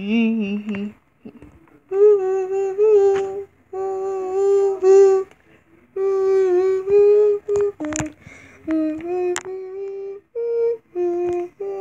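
A child humming a tune: held notes in short phrases with brief pauses between them. Two sharp clicks come partway through.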